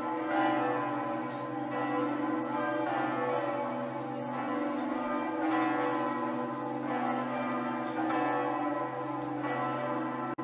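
Bells ringing, a new strike about every second and a half, each one ringing on over the next.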